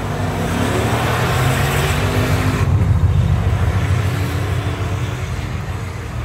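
Car engine run hard at high revs during a burnout, with a loud hiss of spinning tyres that cuts off about two and a half seconds in, leaving the engine sound.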